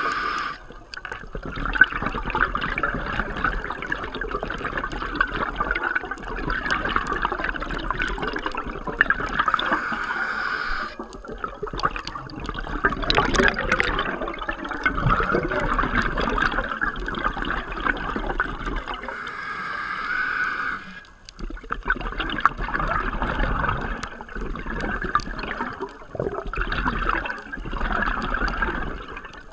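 Underwater water noise heard through a camera's waterproof housing: a steady rushing and bubbling that dips briefly a few times.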